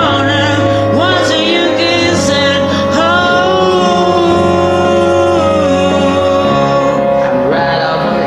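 Karaoke backing track with a singer over it, holding long, wavering sung notes.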